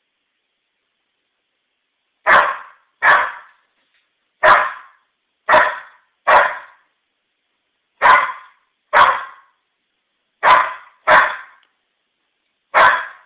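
An eight-month-old Old English Sheepdog puppy barking ten times in single sharp barks, loosely in pairs about a second apart, starting about two seconds in. These are alarm barks at an unfamiliar vase of lilies.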